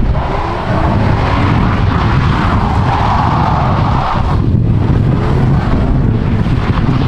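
Pickup truck engine revving hard as its rear tyres spin and squeal in a burnout on asphalt, easing off for a moment about four seconds in before picking up again.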